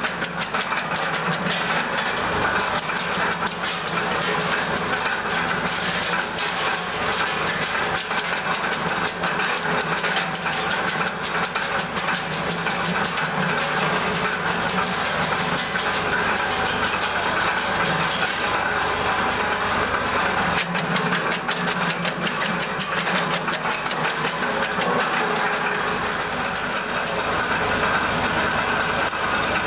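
Homemade tractor-driven wood chipper running and chopping branches fed into its hopper, a dense, fast clatter over the steady running of the tractor engine. This is the first test of the unfinished chipper.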